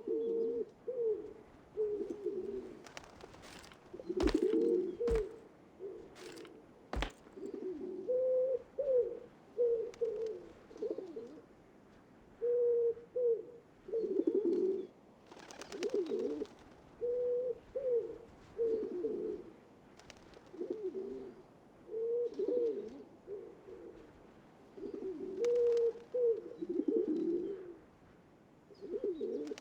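Low, repeated cooing bird calls, several overlapping in near-continuous bouts, which the uploader takes for an owl. Three sharp knocks come between about four and seven seconds in.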